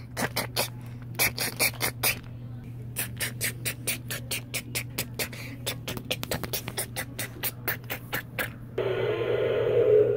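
Hard plastic toy dragons tapping and clattering on a tile floor in quick, uneven clicks. Near the end comes a rough, drawn-out noise lasting about a second and a half.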